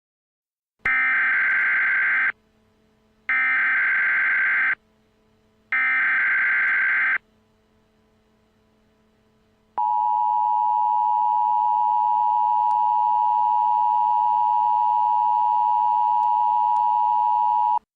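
Emergency Alert System tones marking the start of an alert: three bursts of warbling digital data (the SAME header), then after a short pause the steady attention signal, a two-tone alarm held for about eight seconds before it cuts off.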